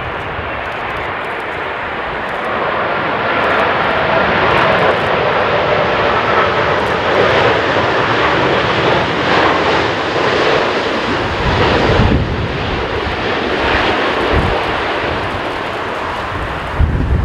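Boeing 787-8 Dreamliner's Rolls-Royce Trent 1000 turbofans at approach power as the airliner passes low and close on final approach. The steady jet noise, with a faint whine early on, swells about three seconds in. From about eleven seconds in, gusts of strong wind buffet the microphone with uneven low rumbles.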